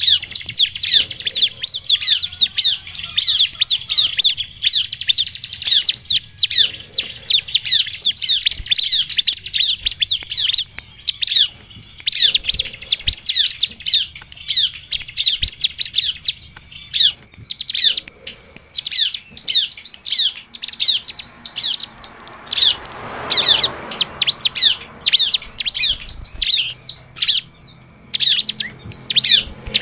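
Bar-winged prinia (ciblek) singing loudly: fast runs of high, sharp chirps repeated in bursts with short pauses between them.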